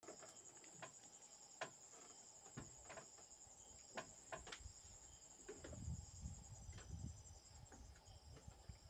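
Faint, steady high-pitched insect trill, cricket-like, with scattered sharp clicks and a low rumble in the second half.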